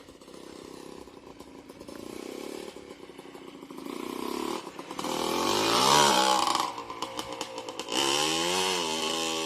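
Yamaha Blaster ATV's single-cylinder two-stroke engine, freshly rebuilt, revving hard under riding. It runs steadily at first, then revs up to its loudest about six seconds in and drops back, with another rise and fall near the end.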